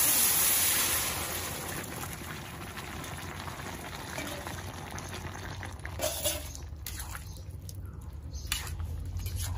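Boiled vegetables and their broth poured into hot ghee tempered with fenugreek seeds: a loud sizzle that dies down over the first two seconds into a quieter bubbling simmer. A few clicks of a metal ladle against the pan come in the second half.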